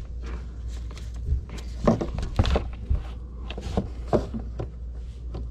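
Handling noise as fingers in a thin plastic glove work at a windshield washer pump's plastic electrical connector, trying to release its locking tab: irregular plastic clicks, taps and rustles, the sharpest about two and four seconds in, over a steady low hum.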